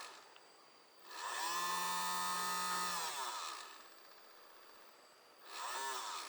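Small 12-volt DC motor of a homemade mini grain grinder switched on, whining up to speed, running about two seconds and winding down. A second short rev-up and spin-down comes near the end.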